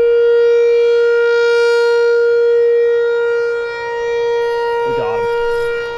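A loud steady whine held at one unchanging pitch, unbroken throughout. Near the end a man's voice exclaims over it.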